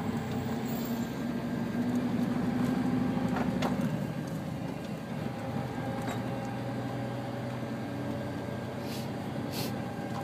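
Engine and road noise from inside a moving vehicle's cab: a steady drone that drops to a lower pitch about four seconds in. Two short clicks come near the end.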